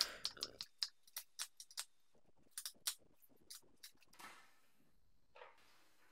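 Faint, sharp clicks and snaps of old HT (spark plug) leads and their clips being unplugged and pulled off: a quick run of clicks for about two seconds, then a few scattered ones and a brief rustle.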